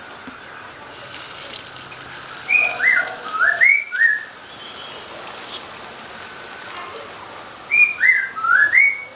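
A songbird whistling a short phrase of four or five gliding notes, sung twice about five seconds apart.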